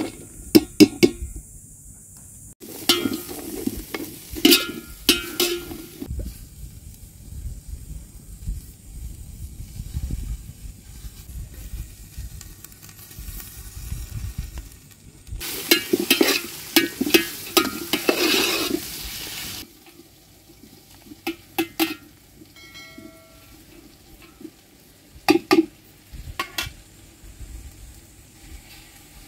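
Sliced red onions rustling and scraping against a steel pot as they are stirred, in two bursts of a few seconds each, with a few scattered clicks later on.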